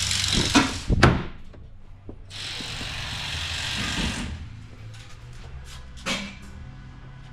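Two sharp clunks about a second in as the driver's door of a 2016 GMC Yukon XL is unlatched and swung open. They are followed by a steady hiss lasting about two seconds and a lighter click near the end.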